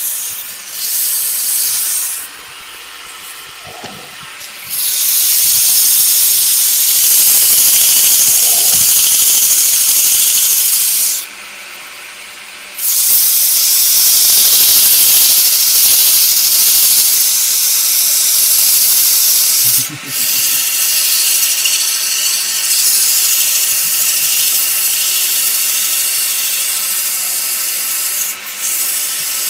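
Coarse 120-grit abrasive paper held by hand against a wooden vase spinning on a lathe, sanding with a steady loud hiss. It drops away twice for a couple of seconds, about two and eleven seconds in, and again for a moment near the end, as the paper comes off the wood.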